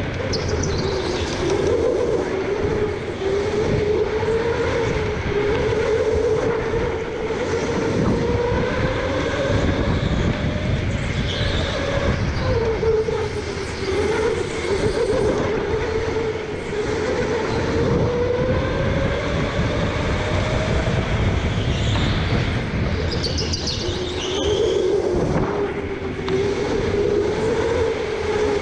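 Electric go-kart motor whining from on board the kart, its pitch sliding up and down with speed every few seconds through the corners, over a steady rumble of tyres and wind. Brief high squeals come twice.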